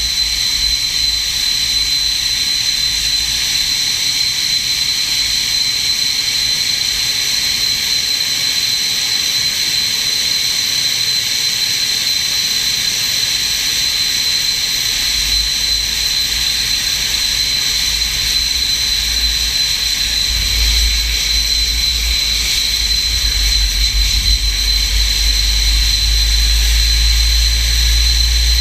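SEPECAT Jaguar's Adour turbofan engine running steadily on the ground: a high steady whine over a low rumble, the rumble growing stronger about two-thirds of the way through.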